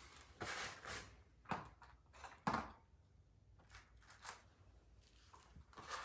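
Light, scattered clinks and knocks of metal steering-box parts being handled and set down on a board, about seven short taps spread over a few seconds.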